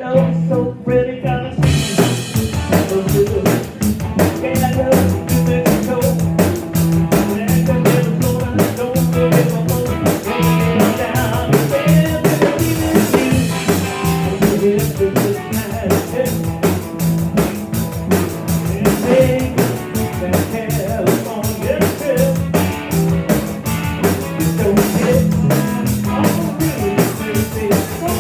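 Live rock band with bass, drum kit and electric guitar playing an up-tempo rhythm-and-blues cover. The full band comes in hard about two seconds in after a few sparse drum hits.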